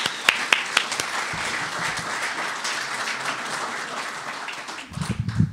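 An audience applauding, a steady dense clapping that dies away about five seconds in, with a few low thumps as it ends.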